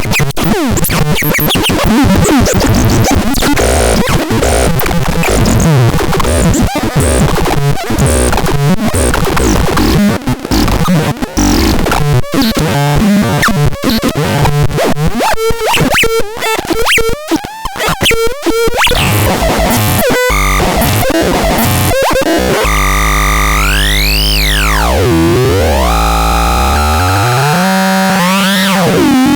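Electronic noise instrument (NAXTRAX) played: harsh, chaotic crackling and stuttering clicks, giving way near the end to a steady low drone with tones sweeping up and down in pitch.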